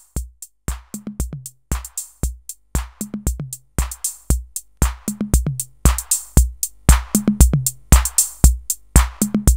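Electronic drum-machine loop of kick and snare hits played through a DIY breadboard VCA compressor set to a very aggressive threshold and ratio, growing steadily louder as the make-up gain is turned up. Breadboard noise rises with the gain.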